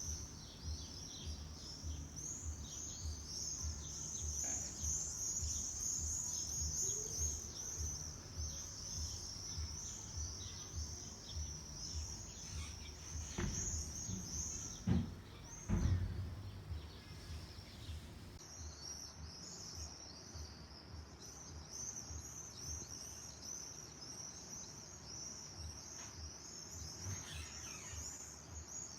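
A flock of small songbirds chirping and twittering continuously, many rapid high chirps overlapping, over a low rumble. A few loud low thumps come around the middle.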